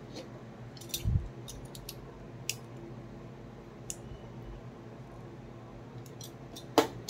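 Light, scattered clicks and a dull knock from an Ethernet cable and small plastic RJ45 plugs being handled and worked by hand.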